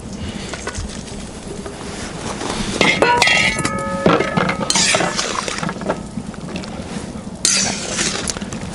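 A metal bowl clinks and scrapes against the rim of a cast-iron kazan as cooked fish is tipped into the simmering broth. There is a short ringing clank about three seconds in, and brief scraping swishes later.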